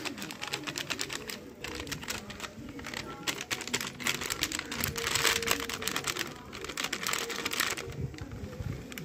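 Plastic-foil spice sachet crinkling fast as it is squeezed and shaken empty over a cooking pot, the crackle thickening around the middle and stopping about eight seconds in.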